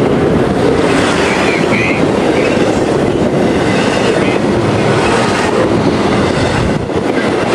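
Freight train running on the rails: a loud, steady rumble and clatter of wheels over the track, with a faint brief wheel squeal about a second and a half in.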